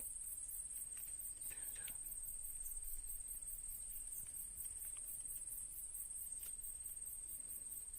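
A steady chorus of insects: a high-pitched trill pulsing rapidly, over a faint low rumble.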